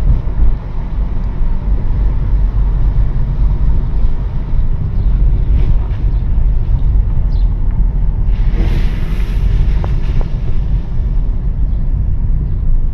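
Car cabin noise while driving: a steady low rumble of engine and tyres on the road. About two-thirds of the way through comes a brief hiss, typical of tyres running through a puddle.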